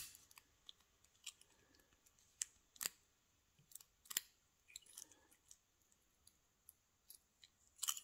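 Faint, scattered metallic clicks and ticks of an American Lock 1100 padlock's brass core and key being handled in the fingers, with a slightly louder click near the end.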